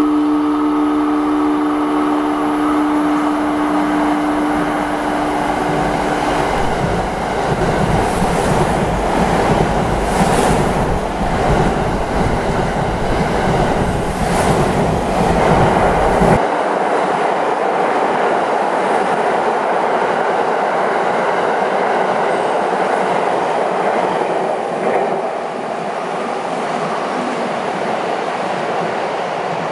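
JR West 683 series 4000 limited-express electric train passing through a station at high speed. It sounds its horn as a held chord of several tones for the first few seconds, then rushes close past with a heavy rumble and clickety-clack of wheels on rail. About sixteen seconds in the sound changes abruptly to a thinner, steady running noise as the train draws away.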